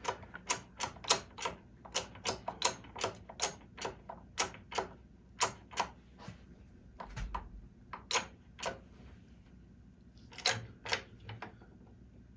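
Hydraulic jack being pumped by hand to load a glued wood block in a shear tester: a run of sharp clicks, about three a second, then a pause and a few more clicks near the end.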